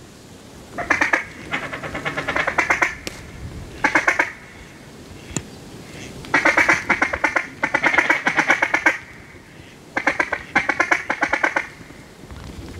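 Duck quacking in runs of rapid, evenly spaced quacks, about six runs each a second or two long, with short pauses between them.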